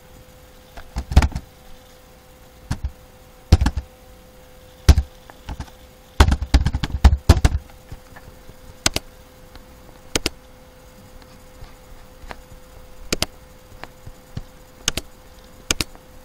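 Computer keyboard and mouse clicks: single sharp clicks every second or two, with a quick run of key taps about six seconds in, over a faint steady hum.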